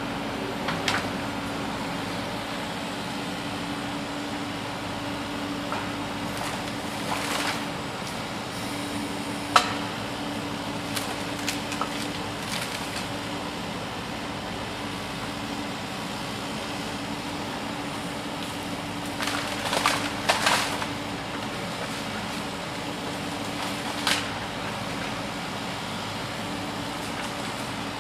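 Steady hum of a toy excavator at work, broken by scattered short clicks and knocks, with a cluster of them about two-thirds of the way in.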